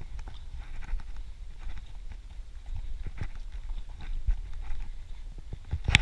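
Running footfalls on a dirt forest trail, a run of short knocks over low wind rumble on the microphone of the moving camera. One sharper, louder knock comes near the end.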